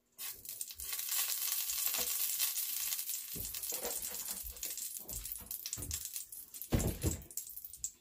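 Olive oil sizzling in a hot pan, a steady hiss that starts suddenly just after the start. A few low thuds come in the second half, the loudest about seven seconds in.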